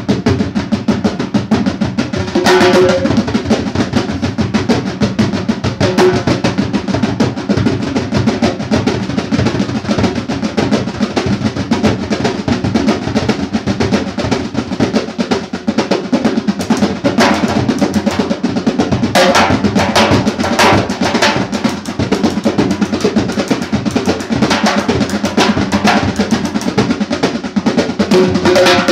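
Nağara barrel drum and a frame drum played with the hands in a fast, unbroken rhythm meant to imitate a train, with heavier accented flurries about two seconds in, around the middle and near the end.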